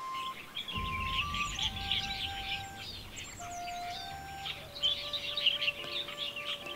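Many small songbirds chirping rapidly together, over slow background music of long held notes that step down in pitch.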